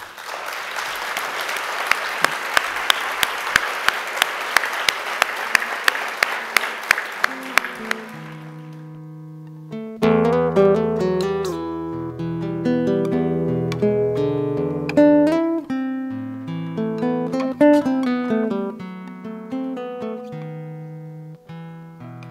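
Audience applause that fades out about eight seconds in. About two seconds later a solo acoustic guitar starts, playing picked single notes over low bass notes.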